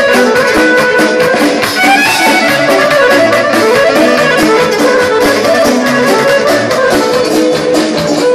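Live amplified band music: an electric violin melody with accordion, over keyboard and a steady drum beat.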